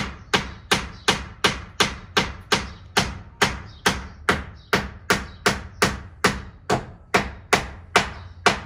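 Claw hammer striking a wooden roof batten in a steady, even rhythm of about two and a half sharp blows a second, each with a brief ring.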